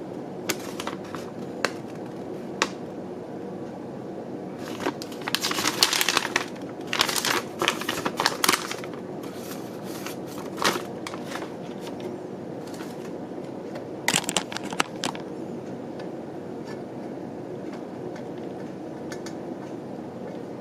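Paper instruction sheet rustling and crinkling as it is handled and unfolded: a few single clicks, then several short bursts of crackle, over a steady low background hum.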